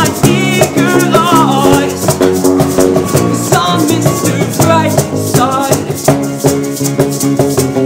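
Live acoustic band music: acoustic guitars strummed in a steady rhythm over acoustic bass, with a wavering melody line on top.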